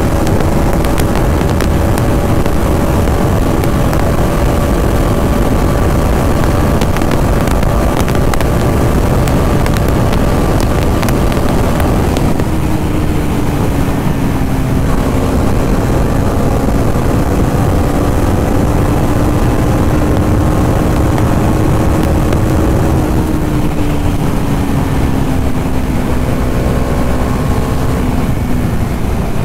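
A Bajaj Dominar 400's 373 cc liquid-cooled single-cylinder engine pulling hard near 150 km/h on a top-speed run, under heavy wind rush on the microphone. About twelve seconds in, the engine note drops suddenly, then sinks gradually over the last few seconds.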